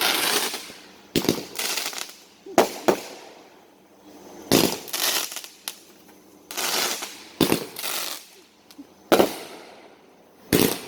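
Fireworks going off: a string of sharp bangs every second or so, each trailing off in a fading hiss.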